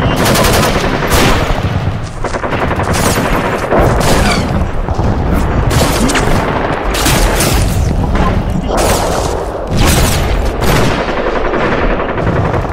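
Sustained automatic gunfire: repeated bursts of rapid shots with louder cracks about every second.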